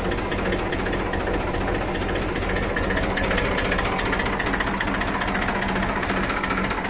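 Massey Ferguson 1035 DI tractor's three-cylinder diesel engine idling steadily, with an even, rapid diesel clatter.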